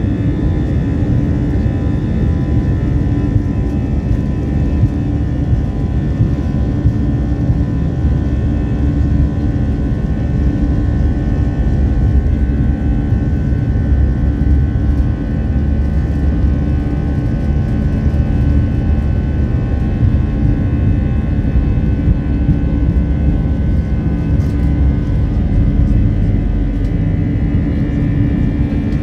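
Airliner engines at take-off power heard from inside the cabin during the take-off roll: a steady, loud rumble with steady whining tones over it, the low rumble growing stronger near the end as the plane nears lift-off.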